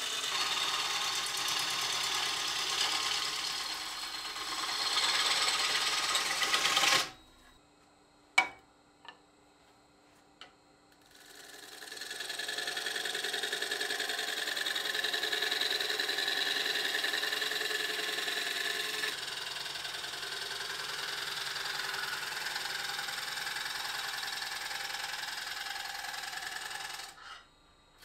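Turning gouge cutting ambrosia maple on a spinning wood lathe: a steady dense hiss of the cut with the lathe running under it. About seven seconds in it stops suddenly, leaving near silence broken by one sharp click and a couple of softer ones. The cutting starts again about four seconds later and goes on steadily, dropping out briefly just before the end.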